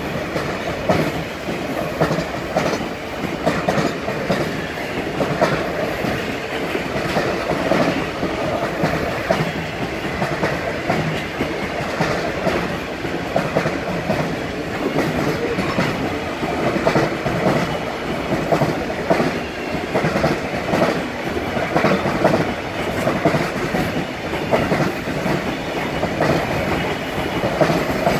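Empty container flat wagons of a freight train rolling past, their wheels clattering steadily over the track with a continuous run of clicks and knocks.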